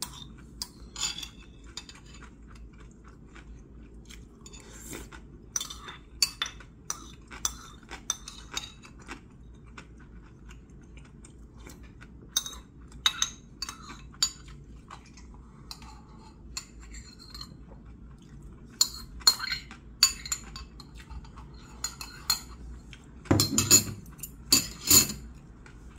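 A metal spoon and chopsticks clinking and scraping against a ceramic rice bowl in scattered taps. The loudest knocks come near the end, as the bowl is set down on the wooden table.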